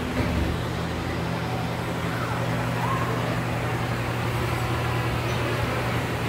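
Fan of a tornado vortex exhibit running steadily: a low, even hum with a rush of moving air as the fog vortex spins.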